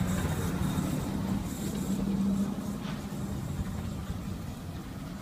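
Steady low hum of a vehicle engine running over street background noise, slowly getting quieter.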